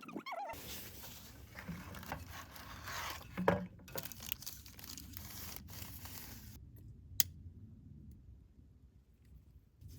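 Rustling and scraping handling noises that fade out after about six seconds, with a knock midway and a sharp click about seven seconds in.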